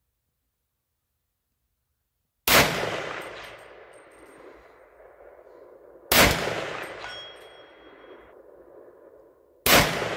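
Three shots from a 300 Blackout AR rifle with a 10.5-inch barrel, the first about two and a half seconds in and then about three and a half seconds apart, each a sharp crack with a long echo trailing off. About a second after the second and third shots comes a faint high ring: the steel target being hit.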